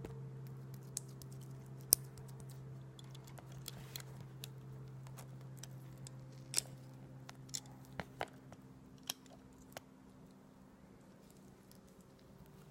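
Close-up mouth sounds of eating aloe vera: scattered sharp, sticky clicks and wet chewing. A steady low hum sits underneath and fades out about two-thirds of the way through.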